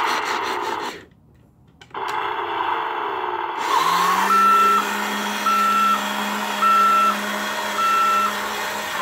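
Electronic sound effects from a Road Rippers Vault Buster toy monster truck: engine-style noise that cuts out for about a second, then a low steady hum under four evenly spaced beeps about a second apart, like a reversing alarm.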